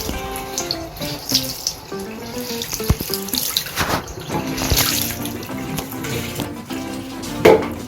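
Water running from a tap and splashing into a sink, with background music playing over it.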